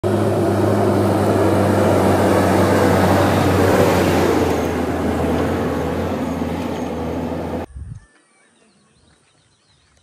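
JCB 3DX backhoe loader's diesel engine running loud and steady, then cutting off suddenly about three-quarters of the way through.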